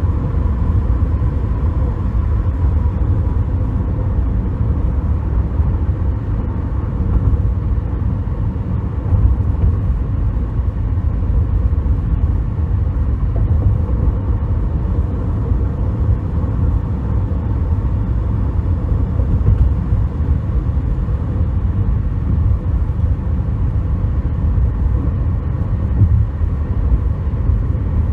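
2007 Toyota Corolla S being driven: a steady low road-and-engine rumble with no knocking or clunking, the steering quiet since its yoke was replaced.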